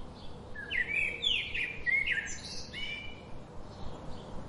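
Songbirds chirping: a quick run of short, sweeping chirps in the first few seconds, then fainter calls over a soft background hiss.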